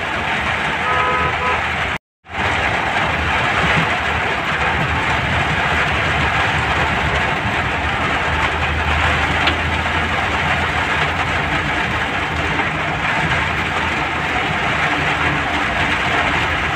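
Steady cabin noise of a vehicle driving through heavy rain: a low engine hum under a broad hiss of rain and wet road. The sound cuts out completely for a moment about two seconds in.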